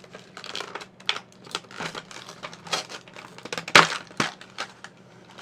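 Plastic blister packaging of a model-kit stage being opened by hand: a run of crinkling and cracking plastic, with one sharp crack just before four seconds in.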